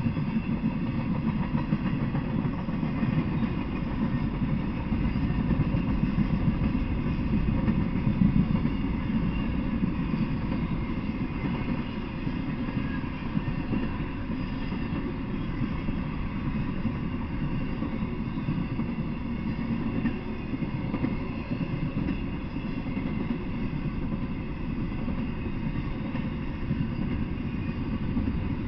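Intermodal freight train rolling past, a steady rumble of steel wheels on the rails from flatcars carrying truck trailers and well cars with double-stacked containers.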